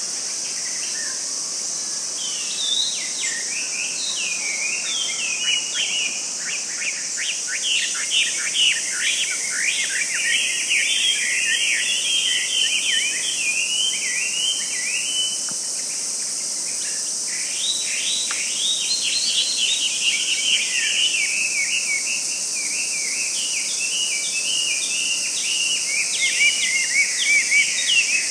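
Forest ambience: small birds chirping and calling in quick, rapid runs of notes over a steady high-pitched insect drone.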